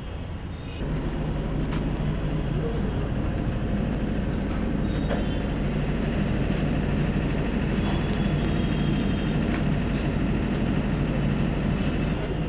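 An engine running steadily: a low, even drone that comes in suddenly about a second in.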